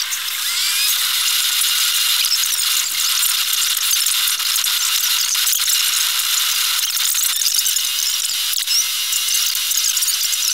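Steady rattling hiss of a car moving fast, dense with fine clicks and with almost no engine rumble beneath it.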